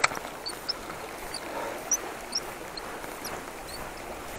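Flowing river water, a steady rush, with a sharp click at the start and faint short high-pitched chirps scattered throughout.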